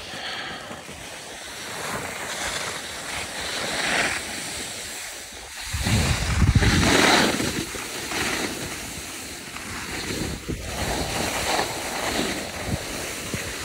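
Wind rushing over the microphone while skiing downhill, mixed with the hiss of skis sliding on snow that swells and fades with the turns. A heavy gust buffets the microphone about six seconds in.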